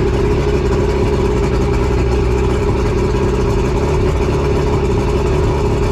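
Force 120 two-stroke outboard motor running steadily out of the water on a garden-hose flush, with an even, unbroken engine note.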